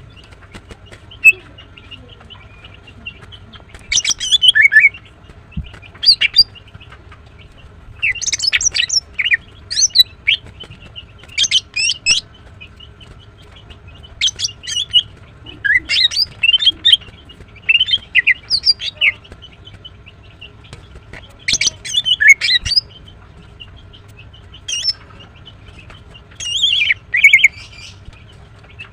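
Female greater green leafbird calling: clusters of quick, sharp, high chirps and short trills, repeated every second or two with short pauses between. A single sharp click about a second in.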